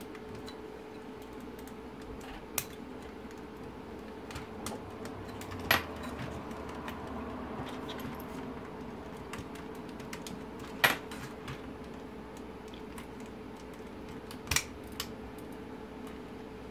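Sharp clicks and light ticks of a small metal pick and fingers working the plastic lugs and pointer motors on an instrument cluster circuit board, the loudest clicks a few seconds apart, over a steady faint hum.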